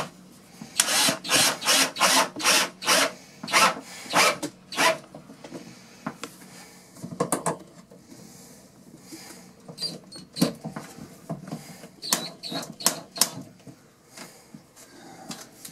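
Cordless drill run in about ten short bursts over the first few seconds, boring pilot holes through the birch back of a wall cabinet so the screws won't split the wood. After that come a few more isolated bursts and scattered clicks and knocks.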